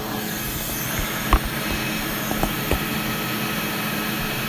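Steady rushing air noise of a blower at the repair bench, with a low hum under it and a few light clicks or taps, the sharpest about a second and a half in.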